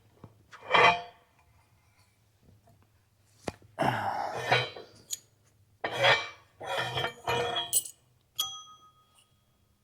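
Steel parts of an excavator thumb and its pin being handled and knocked: a run of separate metal clanks and scrapes, then a sharp metal strike about eight and a half seconds in that rings on briefly.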